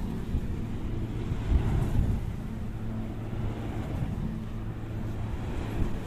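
Wind buffeting the microphone: an uneven low rumble, with a faint steady low hum underneath.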